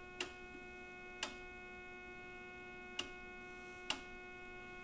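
A faint steady tone with many overtones: the audio test tone fed into an RCA 262 tube radio's phono input, coming through the set distorted because the first audio tube is not working fully. Four sharp clicks sound during it.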